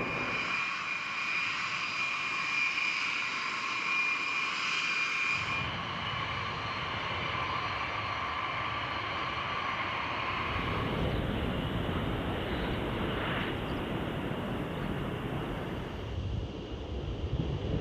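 Jet aircraft engines running with a steady whine. The sound changes abruptly several times, about 5, 11 and 16 seconds in, as the footage cuts between shots.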